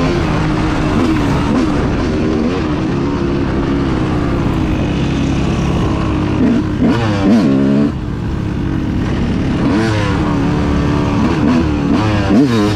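Dirt bike engine under way, its pitch rising and falling as the throttle is worked through the gears. There are sharp revs climbing about seven seconds in and again near the end.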